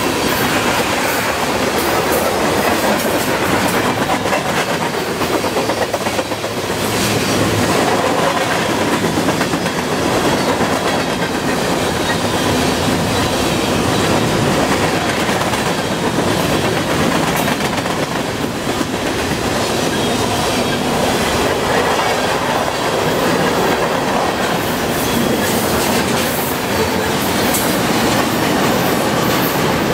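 Freight train of loaded tank cars and covered hoppers rolling past at about 34 mph: steel wheels clicking over the rails under a steady rumble and rattle of the cars.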